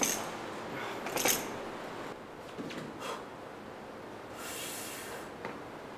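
Gym room sounds: a sharp metal clank at the start and another about a second in, then quiet room noise with a short hiss about four and a half seconds in.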